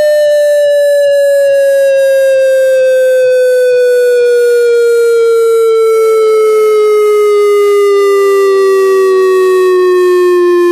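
Electronic speaker-test tone sweeping slowly and steadily downward in pitch, one loud pure tone with faint overtones, part of a sweep toward the bass.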